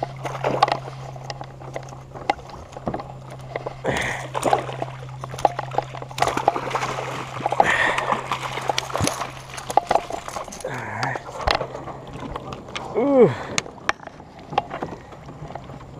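Hooked redfish thrashing at the surface on the line, splashing and sloshing water beside a kayak, with scattered clicks and knocks. A short call that rises and falls sounds about thirteen seconds in.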